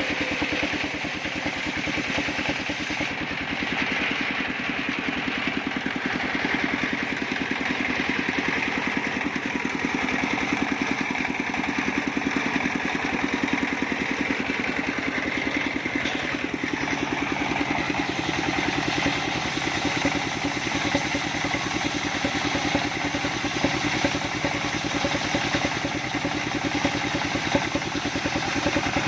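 Engine-driven sawmill saw running steadily, with a fast, even pulse and no sudden changes.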